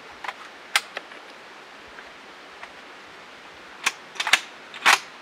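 .338 Lapua Magnum rifle being loaded by hand: a series of sharp metallic clicks and clacks from the cartridge and action. There are a few in the first second, then a tighter cluster about four seconds in.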